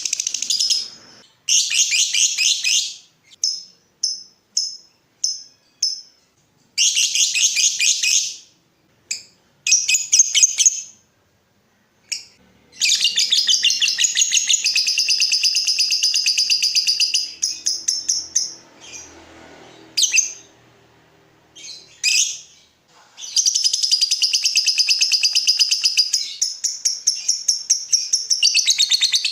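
Lovebird chattering in rapid, high-pitched trills. In the first half the trills come in short bursts with pauses between them; later they run unbroken for several seconds at a time. It is a master recording of lovebird song, the kind played to provoke other lovebirds into singing.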